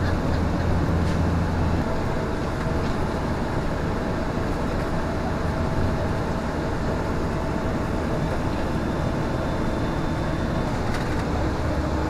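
A bus's engine running, with steady road and tyre noise, heard from inside the passenger cabin as the bus drives along. A low engine drone is strongest in the first couple of seconds.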